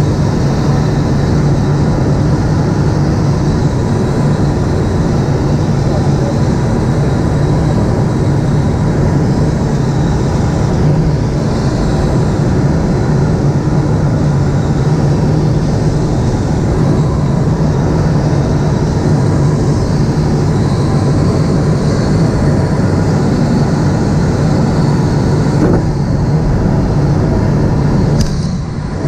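Steady loud rumble and rushing noise with a low steady hum, as heard inside a sailplane cockpit on a training flight. It dips briefly near the end.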